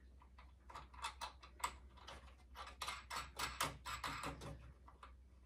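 Faint, irregular clicks and scrapes of an L-shaped hex key turning screws into a rocking chair frame during assembly, busiest from about one second in until near the end.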